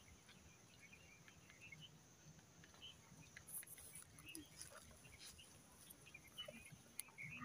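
Near silence: faint open-air ambience with a few scattered faint high chirps and ticks.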